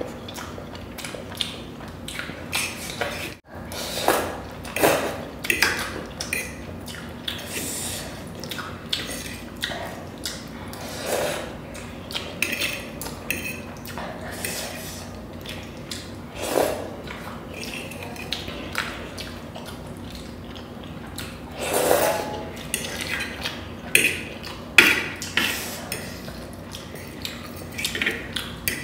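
Close-miked eating sounds: a metal fork clicking and scraping on a plate as spicy instant noodles are picked up, with chewing and slurping between, in many short irregular strokes.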